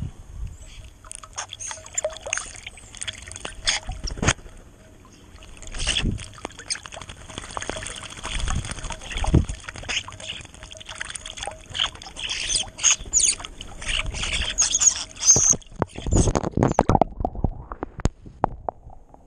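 Starlings bathing in a shallow stone birdbath: irregular splashing and wing-flapping in the water close to the microphone. Near the end there is a heavier, muffled splashing right at the microphone, and then it goes quieter.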